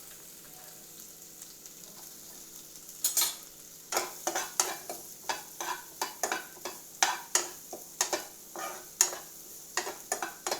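Chopped onion sizzling in melted butter in a kadai. From about three seconds in, a utensil stirs and scrapes the pan in quick repeated strokes, about two a second, over the steady sizzle. The onion is being fried lightly, just until its raw smell goes.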